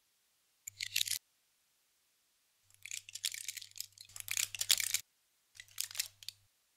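Foil blister strips of tablets crinkling and crackling in three bursts as they are handled and torn open to get a tablet out, the longest burst in the middle.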